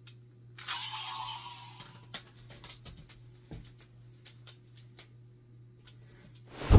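Plastic Kamen Rider toy blaster being handled: a brief hiss about a second in, then a run of small plastic clicks and taps. A loud sound that falls in pitch comes at the very end.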